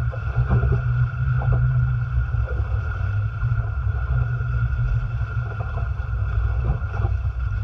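Wind buffeting the microphone and water rushing along the hulls of a Farrier Tramp folding trimaran under sail in choppy open water, with a few brief slaps of waves against the hulls.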